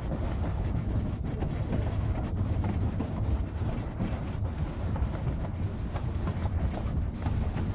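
East Broad Top No. 15's narrow-gauge steam train running along the track, heard from just behind the tender: a steady low rumble of wheels on rail with some irregular rail clatter.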